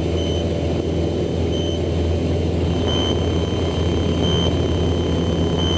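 Light aircraft's piston engine and propeller droning steadily inside the cockpit. A short high beep repeats about every second and a half over it, a cockpit alert tone.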